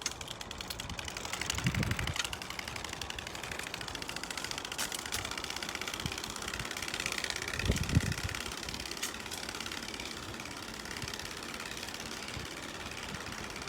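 A playing card taped to a bicycle frame, flapping against the spokes of the turning wheel: a fast, steady rattle that sounds like a small motor. Two short low thumps break in, about two and eight seconds in.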